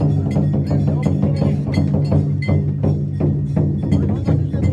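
Danjiri festival float music: drums and percussion struck in a rapid, continuous rhythm over a steady low hum.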